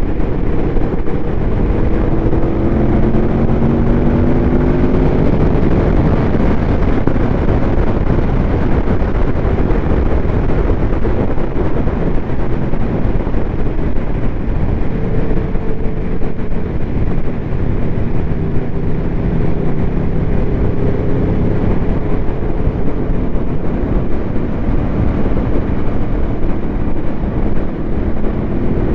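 Aprilia Tuono V4 engine through an SC Project SC1-R slip-on exhaust, heard onboard at speed with heavy wind rush. The engine note climbs in pitch as the bike accelerates over the first few seconds and again near the end.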